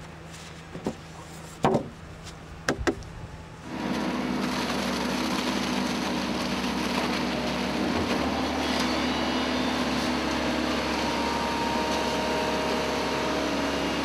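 A few brief knocks as polystyrene infill blocks are fitted between precast concrete floor beams. About four seconds in, the steady diesel running of site machinery, an excavator and a ready-mix concrete truck, takes over as concrete is tipped onto the floor.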